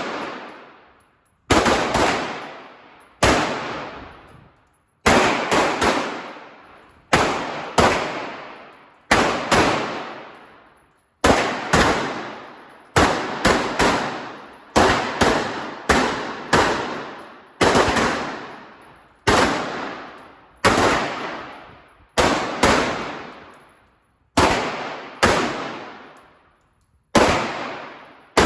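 Pistol shots fired one after another at an uneven pace, sometimes two or three in quick succession and sometimes a second or two apart. Each crack is followed by a long fading echo.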